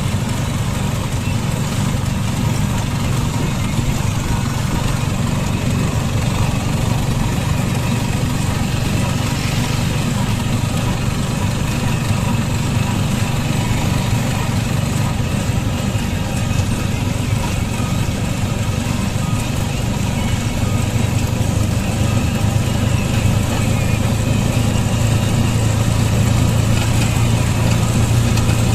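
Vehicle engine running steadily with a low hum, growing a little stronger near the end.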